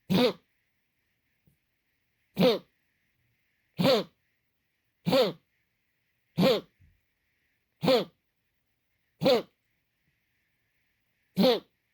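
An animal's cough, repeated eight times at fairly even intervals of about a second and a half, with one longer gap near the end. Each cough is short and pitched, falling in pitch.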